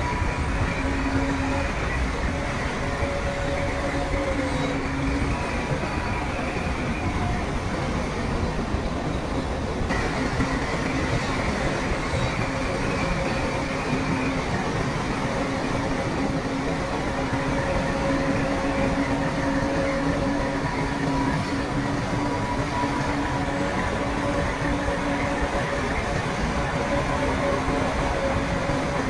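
Shantui crawler bulldozer working: a steady diesel drone with track rumble and a wavering whine.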